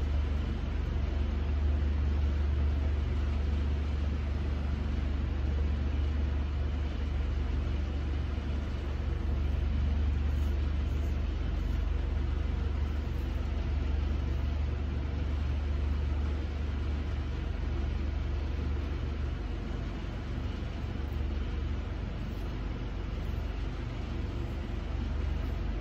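Steady low rumble of an idling engine, with a deep hum that holds throughout.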